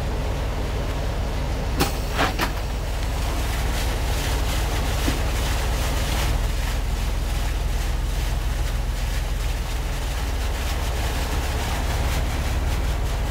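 Wind rumbling on the camera microphone, with a few sharp knocks about two seconds in.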